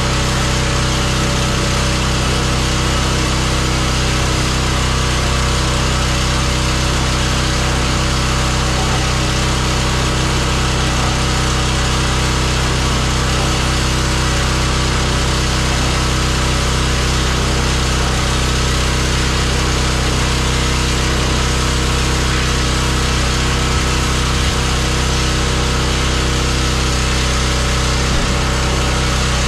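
Pressure washer running steadily: an even motor hum under a constant hiss, unbroken throughout.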